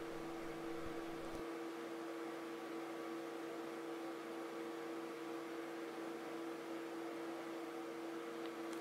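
Steady electrical hum made of a few constant tones over an even background hiss, with no distinct events; a faint low rumble drops away about one and a half seconds in.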